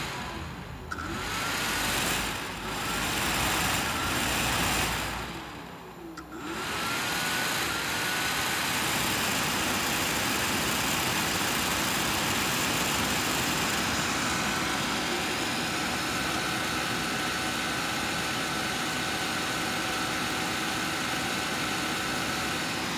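Cooler Master Jet 4 CPU cooler fan running with a loud air rush. In the first few seconds it drops off twice and spins back up with a rising whine as a loose wire to its speed dial is held in place, then it runs steadily at full speed, with a faint high steady whine over the rush in the second half.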